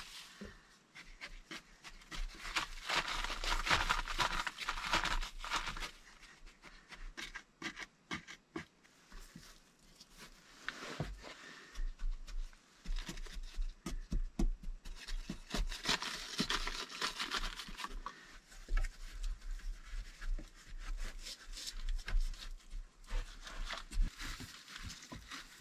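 Jute-fibre caulking being torn from a roll and stuffed into the gaps of a log wall: fibrous rustling and scraping, with many short taps and clicks as a knife blade presses the fibre into the seams. There are two longer stretches of rustling, one a couple of seconds in and one about two-thirds through.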